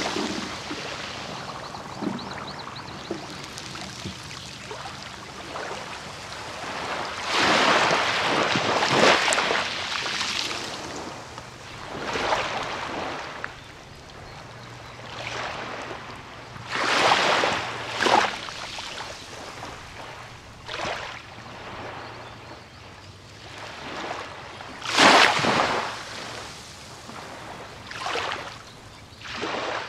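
Small waves breaking and washing up on a beach, each one swelling up and falling away, one every few seconds over a steady wash of water.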